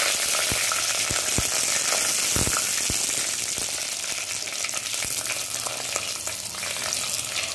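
Hot coconut oil sizzling in a clay pot as green chillies and curry leaves fry, with a few sharp pops in the first three seconds. A wooden spatula stirs the tempering near the end.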